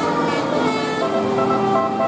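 Indonesian 'telolet' bus horn playing a tune: several air-horn notes, each held briefly, stepping from one pitch to another in quick succession over traffic noise.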